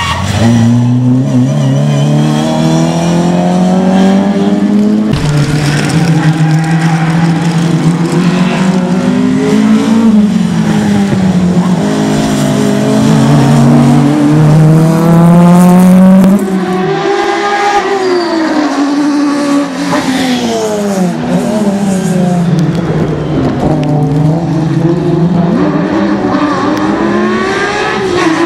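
Rally cars driven hard one after another: a Ford Escort Mk2, then a Volkswagen Golf Mk1, then a Porsche 911. Each engine revs high and its pitch climbs and drops again and again with the gear changes and lifts as the car passes.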